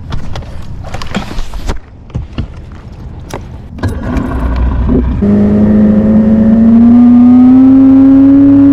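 Knocks and clatter of gear being handled on a bass boat, then the outboard motor starts about four seconds in and runs, rising steadily in pitch as it picks up speed. It breaks off suddenly at the end.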